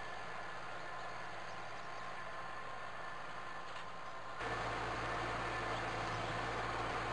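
Mahindra eMax 22 compact tractor's diesel engine running steadily at a distance as it pulls cultivators down a garden row. About four seconds in, the sound turns suddenly louder and fuller.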